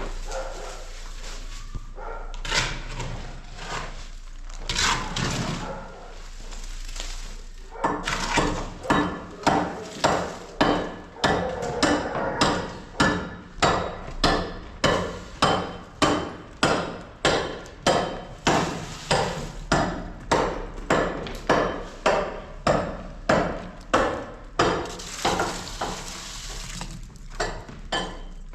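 Steady, even hammer blows, about two a second, starting about eight seconds in and getting fainter near the end, after a stretch of irregular knocks.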